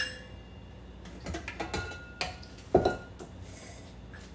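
Kitchenware being handled: a scatter of clicks and knocks, the loudest just under three seconds in with a brief metallic ring, as the stainless steel mixing bowl and pans are moved on the counter.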